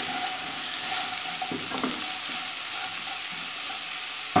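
Sliced onions sizzling in a little oil in a nonstick kadai, stirred with a wooden spatula that scrapes the pan a few times. A sharp knock right at the end.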